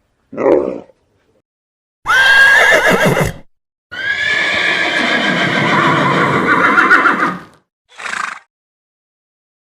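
Horse neighing: a short loud neigh about two seconds in, then a long wavering whinny lasting over three seconds, with a brief sound after it.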